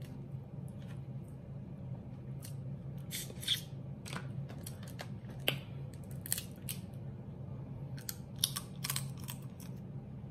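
Crab leg shells being cracked and snapped apart by hand: a series of sharp, irregular cracks and crackles, the loudest about three and a half, five and a half and eight and a half seconds in. A steady low hum runs underneath.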